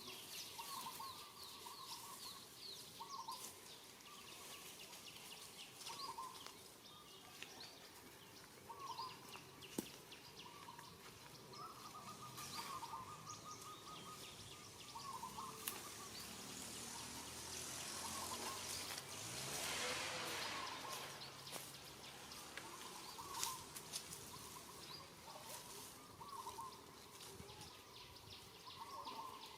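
Short animal calls repeating every second or two over a faint outdoor background, with high chirps and a few light clicks, and a short swell of hissing noise about two-thirds of the way through.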